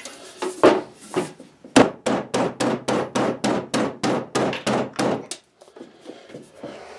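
Galvanized double-wall vent pipe being banged down onto the crimped collar of a sheet-metal wall vent hood: a quick run of metallic knocks, about four a second, that stops about five seconds in. The pipe is being forced onto a tight, stubborn fit.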